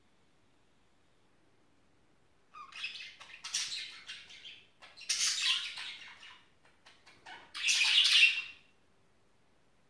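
Budgerigars chattering and squawking in three harsh bouts, starting about two and a half seconds in; the last bout is the loudest.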